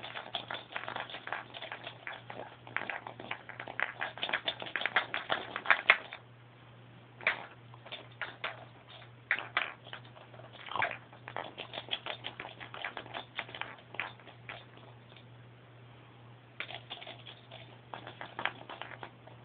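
Clear plastic toy rattle ball shaken by hand, giving runs of rapid clicking: dense for about the first third, then scattered clicks, then another run near the end. A low steady hum sits underneath.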